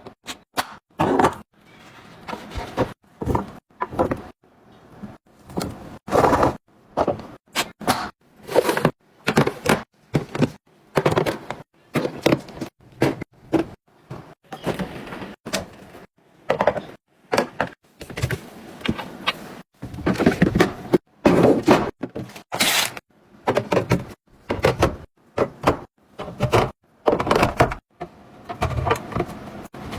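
Containers and groceries being set down, slid and arranged in a fridge: an uneven run of taps, clunks and rattles, about one or two a second.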